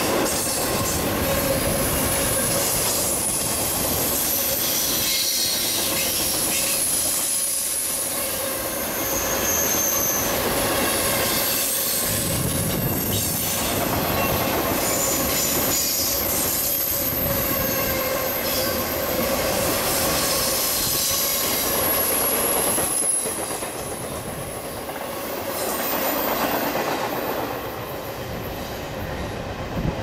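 Intermodal freight cars rolling past on curved track, a steady rumble with the wheels squealing in thin high tones and clacking over the rail joints. The sound drops off over the last several seconds as the end of the train goes by.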